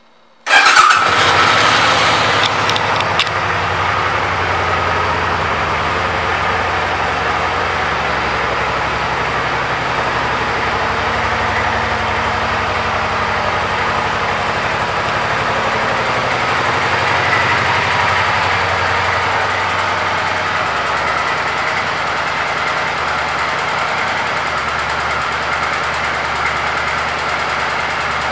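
The 2011 Suzuki Boulevard C50T's 805 cc V-twin starts about half a second in. It is loudest just as it catches, then idles steadily.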